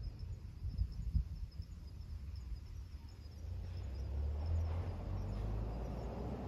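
Outdoor wind buffeting the microphone as a low, gusting rumble that eases about a second in and builds again from around three and a half seconds. A faint, evenly repeated high chirping runs underneath.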